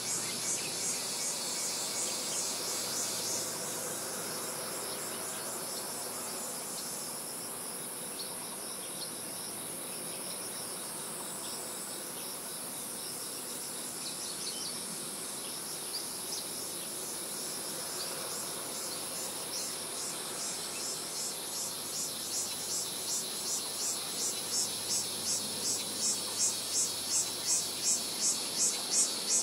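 High-pitched insect chorus: a steady buzz with a pulsing call at about three pulses a second that grows louder over the last third.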